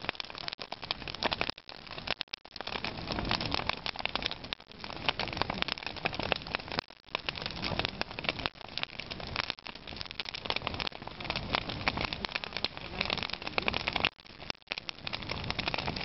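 Large bonfire burning with dense, continuous crackling and popping that dips out briefly several times.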